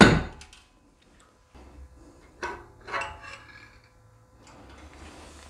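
A sharp knock on an e-bike hub motor to free it from its casing, then a few light metal clicks and clinks about two and a half and three seconds in as the motor core is lifted out of the hub shell.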